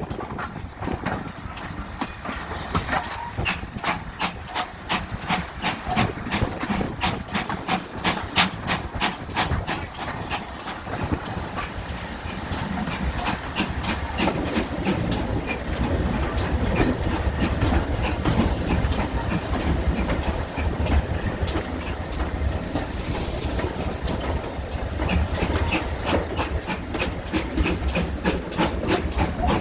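Steam-hauled train running past, with a quick, even run of clicks throughout and a low rumble building from about halfway. A short burst of steam hiss comes near the end.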